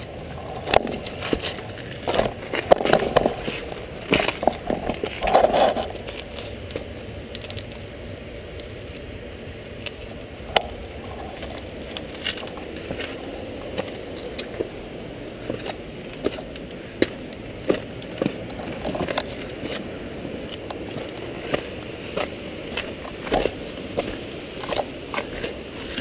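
Bicycle rolling over a rocky, gravelly trail: tyres crunching and crackling on loose stones, with many sharp clicks and knocks as the bike jolts over rocks. The rough bursts are loudest in the first six seconds, then it settles into steadier rolling noise.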